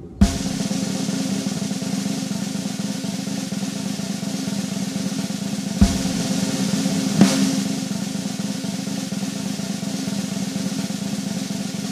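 Tap water running into a motorhome's kitchen sink, with the van's electric water pump humming and rattling steadily the whole time. A few sharp clanks of a pan and dishes, the loudest just after the start and near the middle.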